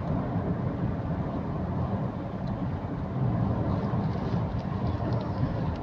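Steady low rumble of vehicle road noise, as heard from inside a moving car.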